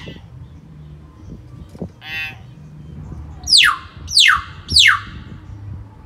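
Hill myna (beo giras) calling: a short harsh call about two seconds in, then three loud whistles in quick succession, each sliding steeply down in pitch, over a low background rumble.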